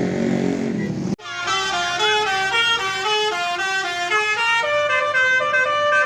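Vehicle engine noise for about the first second, then, after an abrupt break, an Indonesian bus's telolet horn playing a melody of quickly changing, several-note chords.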